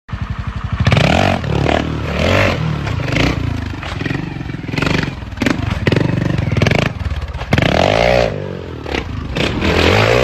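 An engine running and revving, its pitch rising and falling several times, with some clatter.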